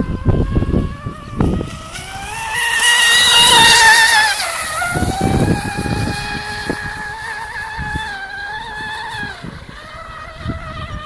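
Radio-controlled F1 model racing boat running at speed: a high-pitched motor whine that rises and is loudest as the boat passes close about three to four seconds in, then drops in pitch and carries on quieter as it runs away. Low thumps sound near the start and around five seconds.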